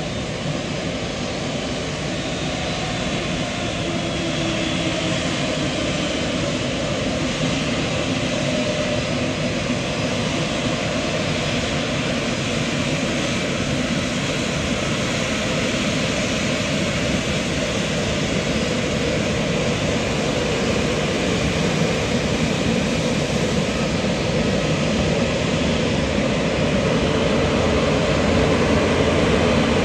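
Jet airliner's engines, a steady rushing roar that grows gradually louder as the aircraft draws nearer.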